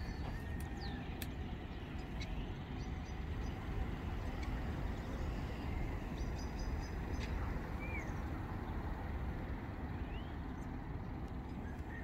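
Steady low outdoor rumble with a few short, high bird chirps and whistles scattered through it.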